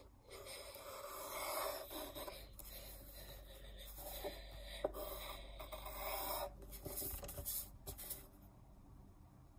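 Pencil drawing on paper: a run of scratching, rubbing strokes that stops about a second before the end.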